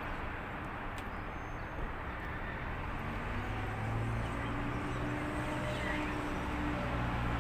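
Street traffic: a steady rumble of passing vehicles, with a low engine drone coming in about three seconds in and holding.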